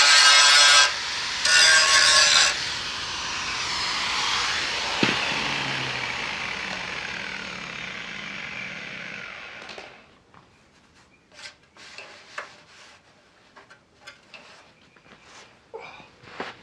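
Angle grinder with an abrasive disc grinding on the rusty steel front grille panel of a Series 1 Land Rover in two short bursts, then spinning down with a falling whine that fades over several seconds. A few light clicks and knocks follow near the end as the tool is set down.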